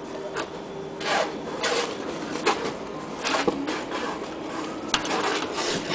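Short, irregular scratching and rubbing strokes as a terne-coated sheet-metal roof panel is marked along a template, with one sharp click about five seconds in.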